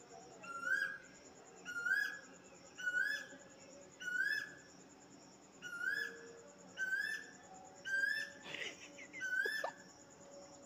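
Kitten mewing over and over, about nine short rising mews roughly one a second.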